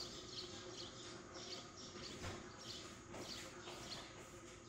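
Gas stove burner running under an empty wok, a faint steady hiss, with short high chirps repeating every half second or so.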